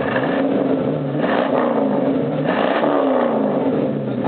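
Car engine revved through Flowmaster mufflers. The exhaust note rises and falls twice with throttle blips.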